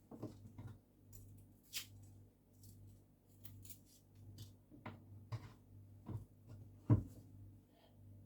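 Kitchen knife cutting a sweet pepper on a chopping board: irregular small cuts and taps of the blade, with one louder knock on the board near the end.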